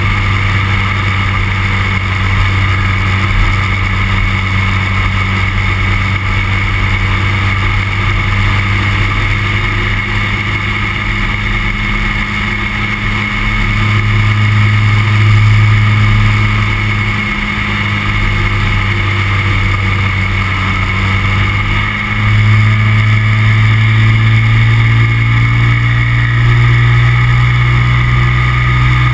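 Microlight trike's engine and propeller running steadily in flight, with wind noise on the microphone. The engine note rises for a few seconds about halfway through, then rises again near the end and holds.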